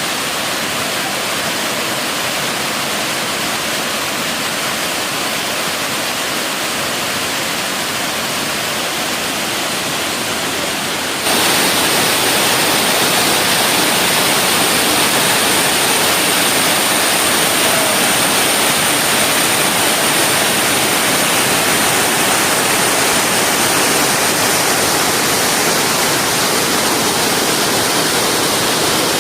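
Waterfall: a steady, even rush of falling water that steps up louder suddenly about eleven seconds in, with a thin, steady high whine above it from then on.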